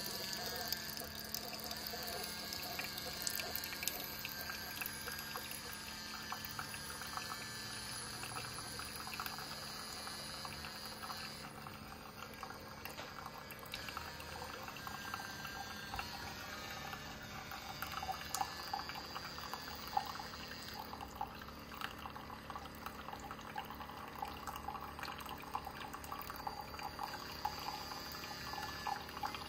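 Keurig K-Mini Plus single-serve coffee maker partway through a brew: hot coffee streaming and dripping into the cup in a steady trickle, with small spattering ticks.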